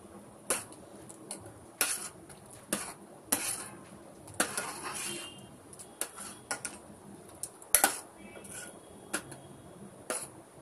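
A metal utensil clinking and scraping against a metal cooking pot, with irregular sharp clinks every second or so, as in stirring a pan of food.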